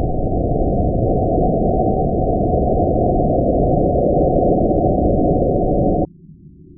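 Model rocket motor firing at lift-off, slowed down in slow-motion playback: a deep, steady rushing noise. It cuts off suddenly about six seconds in, and a much quieter low rumble follows.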